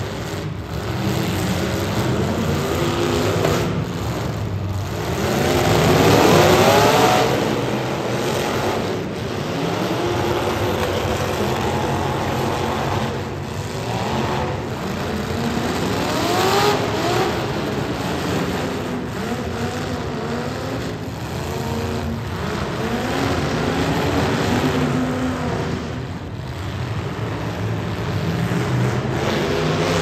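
Demolition derby car engines running hard and revving, with rising revs that are loudest about six seconds in and again around the middle.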